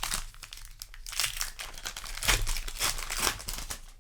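Foil wrapper of a Magic: The Gathering play booster pack crinkling and tearing in the hands, in irregular rustling bursts.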